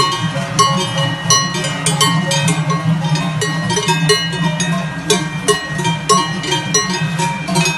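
Cowbells on a string of cows walking along a road, clanging irregularly, with several bells ringing over one another in a continuous jangle.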